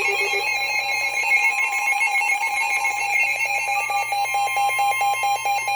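Weather-radio emergency alert alarm: an electronic alarm beeping in a rapid repeating pattern over a steady high tone, sounding the alert for a severe thunderstorm warning.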